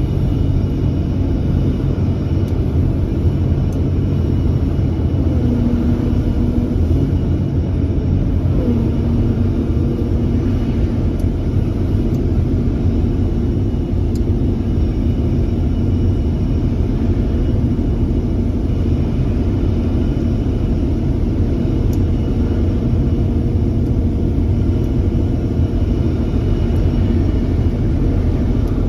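Komatsu PC350-8 LC excavator's diesel engine running steadily with a deep rumble; a steady higher hum comes in about eight and a half seconds in and holds.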